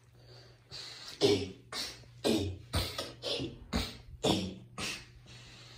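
Footsteps on a tiled floor, about nine even steps at roughly two a second, over a low steady hum.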